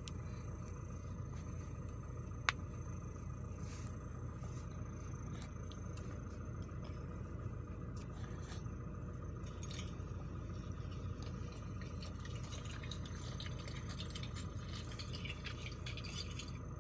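Steady low background hum and hiss with scattered faint clicks, and one sharp click about two and a half seconds in.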